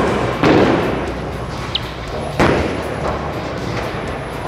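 A bowling ball being thrown and rolling down the lane, over the steady low rumble of a bowling alley. Two sharp knocks stand out, about half a second in and about two and a half seconds in.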